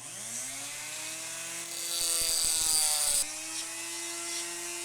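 A small high-speed power tool spins up with a quickly rising whine and cuts through a toy car's metal axle. A hissing grind rides over the motor, loudest from about two to three seconds in, and the motor briefly bogs down as it bites.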